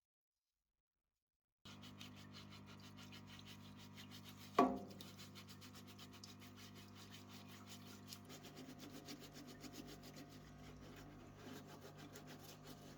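A small motor running with a steady hum and a rubbing, rasping sound, starting about a second and a half in. A single sharp clink with a short ring comes about four and a half seconds in.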